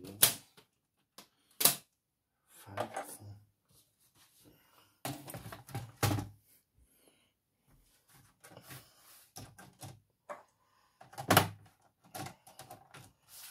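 Plastic paper trimmer set down on a desk and cardstock slid and lined up on it: a few sharp clacks and knocks among softer sliding and scraping paper sounds.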